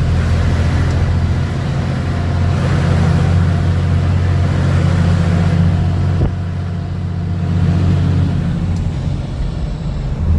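Renault CBH truck's six-cylinder diesel engine running steadily under power, with a short break about six seconds in where a gear is shifted, then pulling again and building toward the end.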